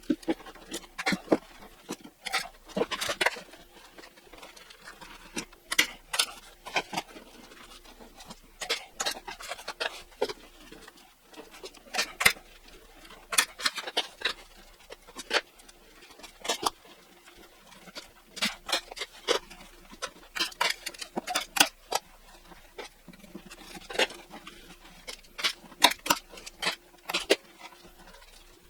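Pond liner being handled and folded over along the top of a wooden trunk: irregular rustles, taps and sharp clicks, several of them loud.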